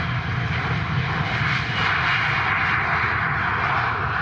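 Airbus A321 jet airliner departing, its twin engines at takeoff thrust in a steady, loud rush of noise over a low rumble.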